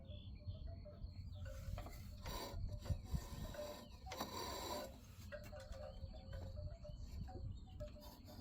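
Hand work on a riding mower's deck parts: metal scraping and rasping, with two louder bursts about two and four seconds in, over a low steady rumble.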